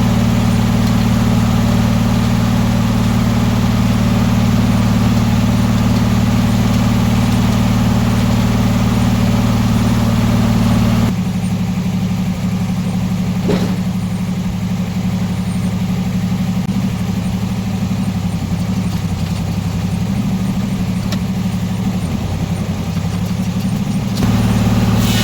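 An engine running steadily; its note changes about eleven seconds in and shifts back near the end, with a single sharp click shortly after the first change.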